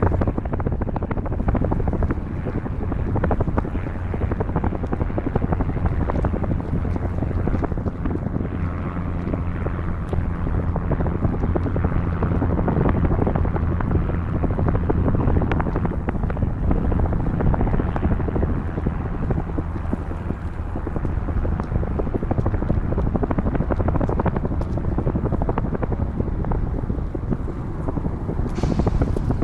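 Wind buffeting the microphone of a camera riding on a moving bicycle: a steady, loud rushing noise, with a brief higher hiss near the end.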